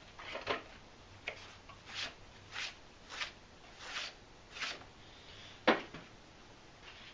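Trigger spray bottle and rag cleaning a metal saw table: a run of short hissing spray and wiping strokes, roughly three every two seconds, then one sharper knock a little before the end.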